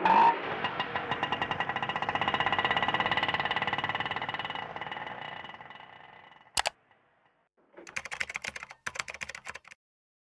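Auto-rickshaw engine sound effect: a small engine's rapid putt-putt, fading away over about six seconds. Then a single click, and near the end a quick run of typewriter-like key clicks.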